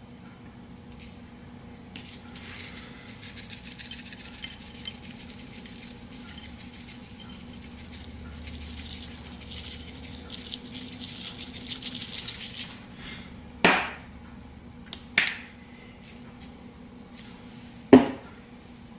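Spice shaker shaken over raw chicken pieces, the seasoning granules rattling in a fast, fine patter for about ten seconds. Three sharp knocks follow near the end.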